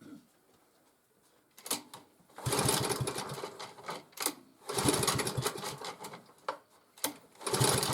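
Small four-stroke engine of an MTD motor-cultivator being pull-started: the recoil starter is yanked three times, each pull turning the engine over in a fast rattling burst that dies away without the engine catching. It fails to start.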